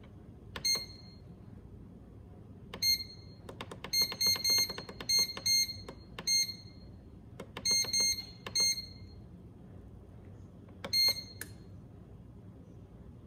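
Oster bread machine's control panel beeping once for each button press as the menu is stepped through to the Bake cycle and the timer is set: about fifteen short, high beeps, some in quick runs and some single, irregularly spaced.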